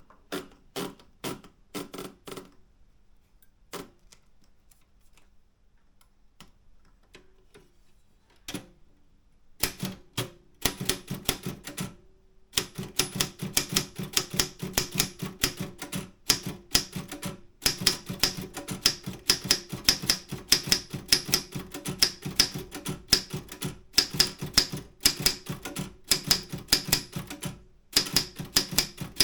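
Optima M10 manual typewriter being typed on. A few keystrokes come first, then scattered faint clicks for several seconds, then fast, dense typing from about ten seconds in, broken by a few short pauses.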